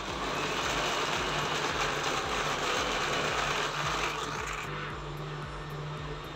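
Electric countertop blender running steadily, grinding cooked sago with mint leaves, sugar and ice cubes in water.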